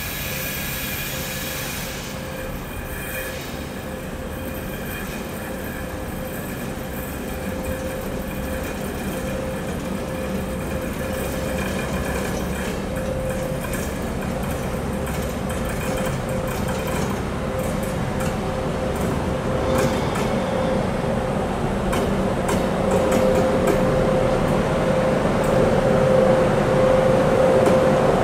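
A train moving slowly through the station, with a steady whine from the wheels on the rails and some high squeal in the first few seconds. It grows steadily louder as the train draws nearer.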